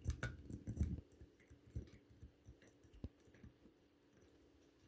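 Cat working at the lid of a ceramic treat jar with its teeth and paws: faint clinks and knocks of the lid, several in the first second and a sharper single one about three seconds in.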